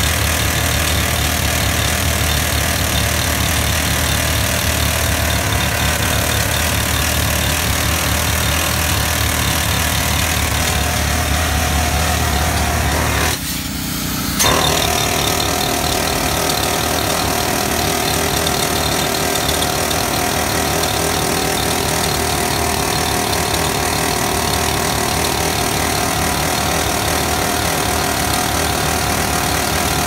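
Jackhammer chiselling into a concrete wall, a steady rapid hammering that stops for about a second midway and then starts again.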